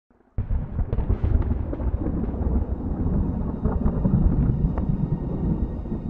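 A deep, steady rumble that starts suddenly just after the opening, with a few faint crackles over it.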